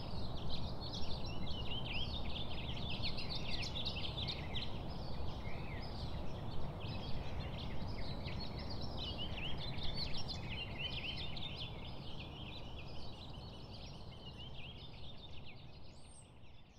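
Dense chorus of many small birds chirping rapidly, over a steady low background rumble, fading out near the end.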